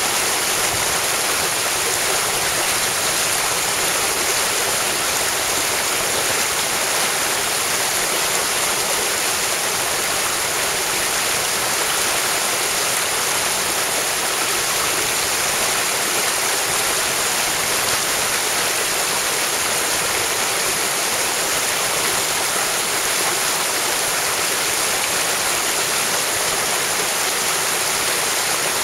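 Mountain stream water rushing steadily, an even, unbroken hiss of flowing water.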